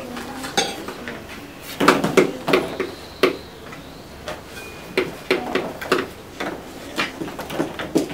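Scattered light clicks and knocks of children handling clipboards, pencils and plastic ball-pit balls, with a cluster of louder knocks about two seconds in.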